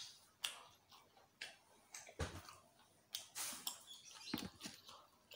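Eating by hand: soft, irregular clicks and smacks of fingers working rice in a glass bowl, and of chewing.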